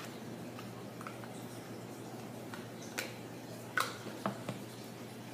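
Homemade face-wash-and-salt slime being handled in the hands: a few soft, sticky clicks and pops, the sharpest ones close together about three to four and a half seconds in, over a steady low hum.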